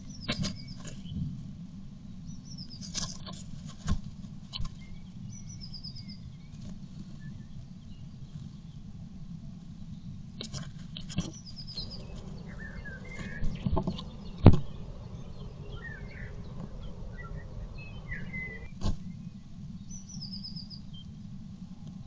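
Blue tit shifting about in its wooden nest box, its feet scratching and knocking on the moss and the wooden walls in scattered clicks, the loudest about halfway through. Short runs of high chirping bird notes come now and then over a steady low hum.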